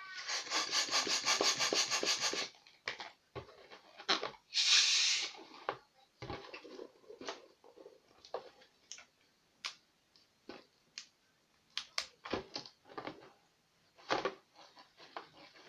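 Latex twisting balloon being inflated and handled: a loud rush of air for the first couple of seconds, a short hiss about five seconds in, then scattered squeaks and rubs of the latex under the hands.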